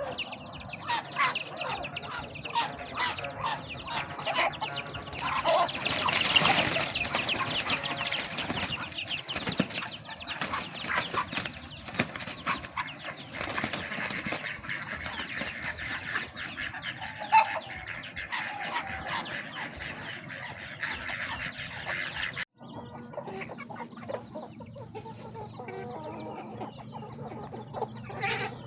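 Chickens eating feed: a steady stream of rapid pecking clicks as beaks strike the feed, mixed with soft clucking. The sound drops out for an instant about three-quarters of the way through.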